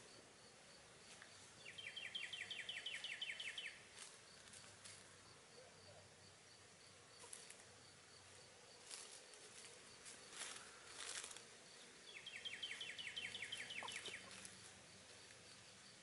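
Faint buzzing of honeybees at a Warre hive entrance. A high trill of rapid, evenly pulsed notes, about two seconds long, is heard twice, with a few sharp ticks between.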